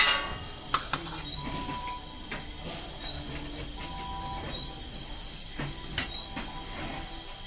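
Restaurant kitchen noise: a steady mechanical hum, with one sharp clink at the start and a few lighter clicks and knocks, one about a second in and another about six seconds in.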